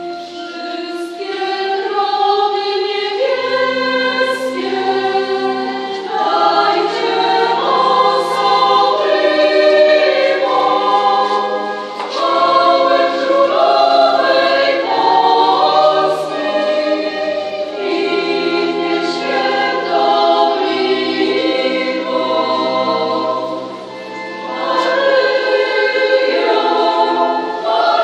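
Mixed choir of women's and men's voices singing a sacred song in harmony, in sustained phrases, with brief breaks between phrases about twelve and twenty-four seconds in.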